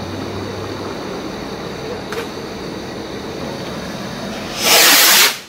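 A steady background rumble and hiss, then near the end a loud rushing whoosh of a Funke Sternflocken firework rocket launching, lasting under a second.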